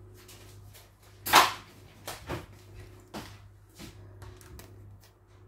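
Kitchen handling noises: one loud bump about a second in, then a few lighter knocks and rustles, over a steady low hum.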